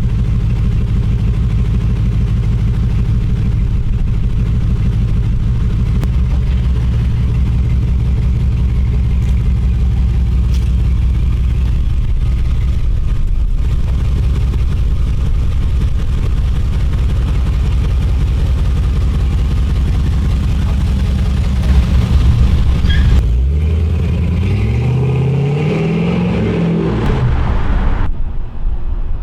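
The exhaust of a 2004 Jeep Grand Cherokee's 4.7 L V8, fitted with a Hooker Aero Chamber stainless muffler, running steadily with a deep exhaust note. Near the end the engine revs once, rising and then falling in pitch, and the sound drops away at the very end.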